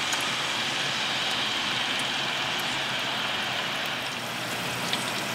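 Fresh-cut potato fries sizzling steadily in peanut oil at 300 degrees in a small electric deep fryer, the first par-cooking fry of a double fry, with a few faint crackles.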